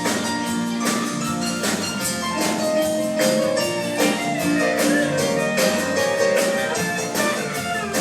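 Country band playing an instrumental break between verses of a honky-tonk song, with a steady drum beat and held lead-instrument notes and no singing.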